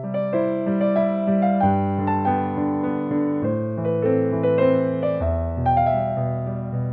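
Piano music: held chords under a slow melody, the notes changing every half second or so.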